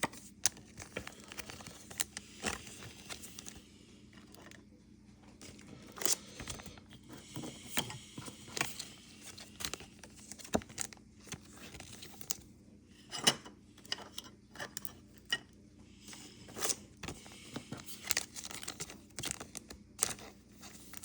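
Pokémon trading cards being handled and slipped into soft plastic penny sleeves: irregular light clicks, taps and plastic crinkling.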